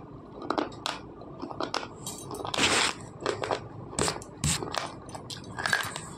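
Slate pencil being bitten and chewed: a run of irregular, crisp crunches, with one longer grinding crunch about two and a half seconds in.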